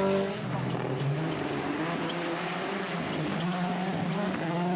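Rally car engine under hard acceleration: the pitch drops about a quarter second in, then climbs again in steps as it changes up through the gears.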